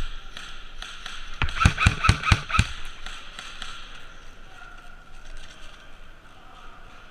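Airsoft gun firing a quick string of about eight sharp shots about a second and a half in, over a faint steady background.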